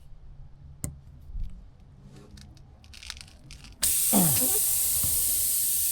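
Pressurised air hissing loudly and steadily out of a punctured tyre. It starts abruptly about four seconds in, after a few faint handling clicks.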